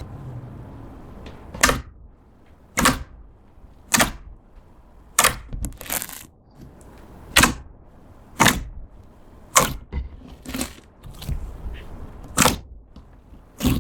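Clear slime being pressed, making sharp clicking pops at roughly one a second, about a dozen in all.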